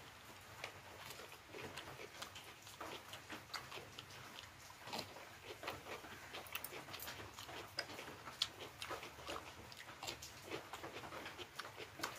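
A person eating: chewing with many short, irregular mouth clicks and smacks.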